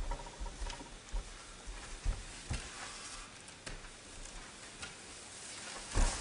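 Scattered soft knocks, footfalls and clothing rustle as two people walk up and sit down on wooden chairs, with a louder thump near the end as they settle onto the seats.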